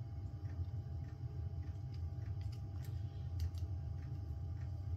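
Light, irregular metallic clicks and ticks of a small screwdriver working a screw into a thin aluminum plate, over a steady low hum.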